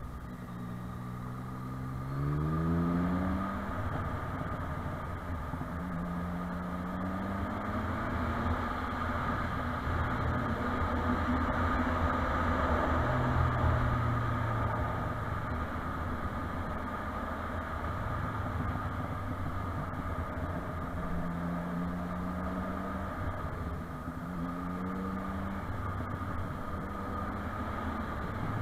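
Motorcycle engine running under way, rising in pitch several times as it accelerates, over a steady rushing noise.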